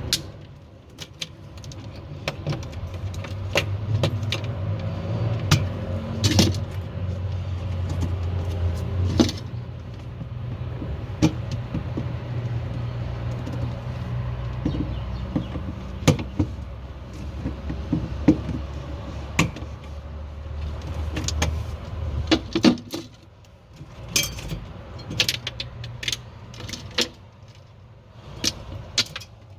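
Scattered small clicks and knocks of tools and parts being handled while a refrigerator's defrost sensor is replaced. Under them runs a steady low hum that stops about 22 seconds in.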